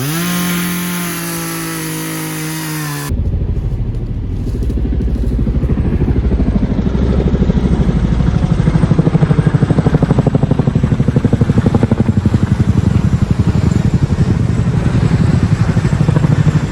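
Portable generator engine starting, its pitch rising quickly to a steady running note. About three seconds in it changes abruptly to a rougher running sound with a fast, even pulsing.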